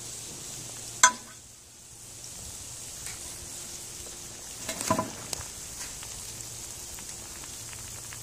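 Catfish pieces deep-frying in hot oil in a cast iron Dutch oven, a steady sizzle. A metal utensil clinks against the pot about a second in, and the sizzle dips briefly afterwards. There are a few more clinks around five seconds.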